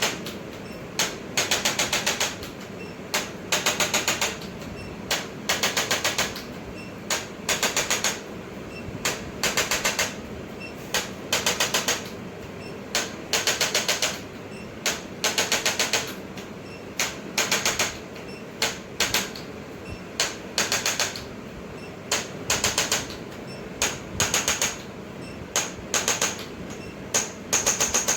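Handheld chiropractic percussion adjusting instrument firing in short bursts of rapid mechanical clicks. Each burst has a handful of quick clicks, and the bursts repeat about once a second.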